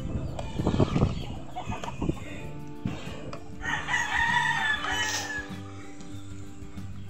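A rooster crowing once, a call of about a second and a half starting about three and a half seconds in, over steady background music. A short burst of knocking comes near the start.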